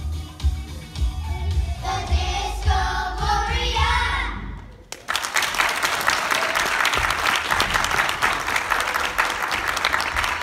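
A backing track with a heavy bass beat and voices singing stops abruptly about four and a half seconds in. A moment later an audience breaks into applause, which goes on to the end.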